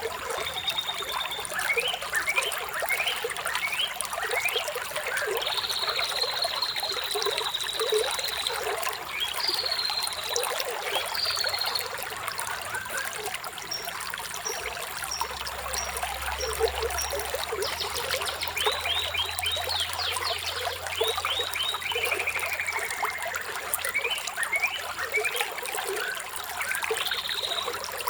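Running water trickling steadily, with birds chirping and whistling over it. There is a long held whistle about six seconds in and a run of quick falling trills around twenty seconds in.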